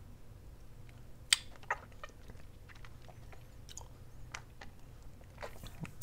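Mouth noises of someone sucking a sour hard candy: scattered wet clicks and smacks, with two sharper clicks a little over a second in.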